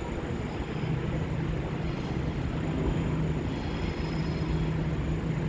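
Steady low mechanical hum of a train standing at a railway platform, with general station noise around it.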